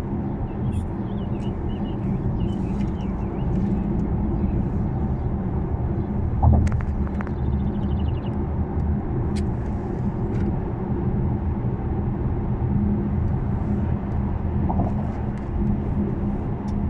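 Road and engine noise heard inside a moving car at highway speed: a steady low rumble with a faint hum, and a brief thump about six and a half seconds in.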